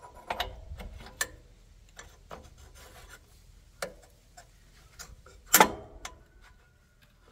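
Metal clutch-shaft parts of a tractor clinking, rubbing and knocking as they are handled and fitted back onto the shaft: scattered small clicks and taps, with one louder clank past the middle.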